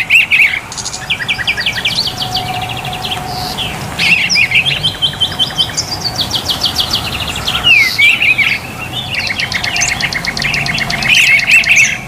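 Songbirds singing and chirping: fast runs of repeated high chirps and short whistled notes from several birds at once, overlapping with no break.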